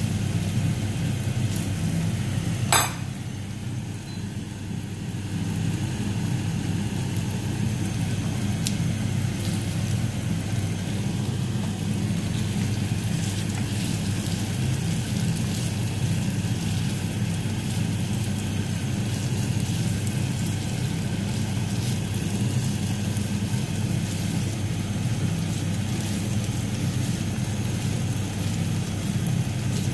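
Chicken tocino sizzling in a nonstick frying pan over a steady low hum, with one sharp click about three seconds in.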